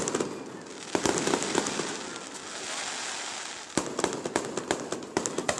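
Fireworks display: a bang about a second in and another just before four seconds in, each followed by a rapid crackle of many small pops, with a hissing fizz between the bursts.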